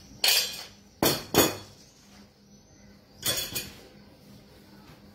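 Sharp knocks and clinks of a hand-held flour sieve and kitchen utensils against a wooden pastry board as flour is sifted onto shortcrust dough. They come in three short groups, with quiet pauses between.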